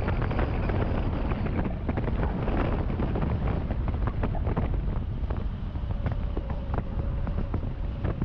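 Wind buffeting a microphone mounted outside a moving car, over the steady rumble of tyres on the road.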